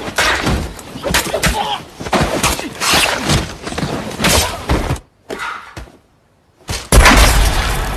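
Film sound effects: a run of crashes and knocks for about five seconds, a short silence, then a sudden loud boom that rumbles away.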